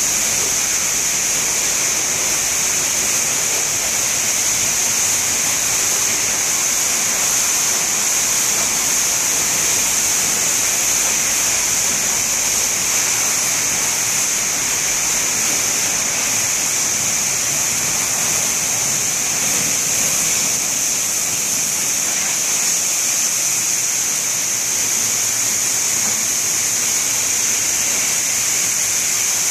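Steady hiss of water jets spraying in an automatic car wash tunnel.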